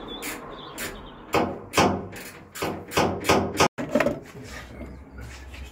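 A run of sharp knocks and clatters, about two a second, from hands working on the bilge pump hose and its fittings inside a steel narrowboat hull. The knocks stop about three and a half seconds in, and quieter handling noise follows.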